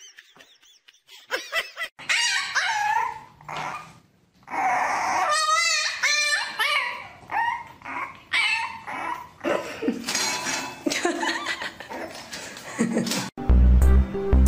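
Dogs vocalizing in a run of short, high calls that rise and fall in pitch. Music cuts in suddenly near the end.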